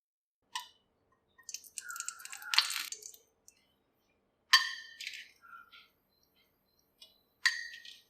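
Kitchen utensils and vessels being handled: three sharp clinks that ring briefly, with a stretch of rustling, scraping handling sounds between the first two.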